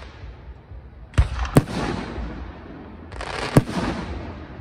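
Aerial firework shells bursting overhead: two sharp booms close together about a second in, then another loud bang about three and a half seconds in, each followed by a fading hiss and rumble.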